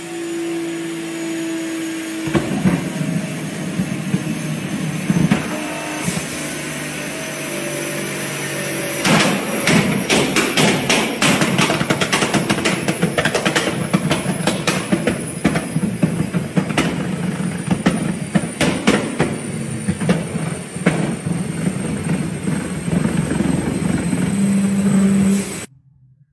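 Nissan GT-R's twin-turbo V6 running on a chassis dyno. The exhaust note rises about two seconds in, and from about nine seconds in it is riddled with rapid crackles and pops as the exhausts shoot flames. It cuts off suddenly near the end.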